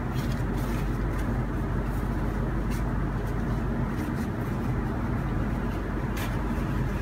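Steady low background hum with a few faint light clicks.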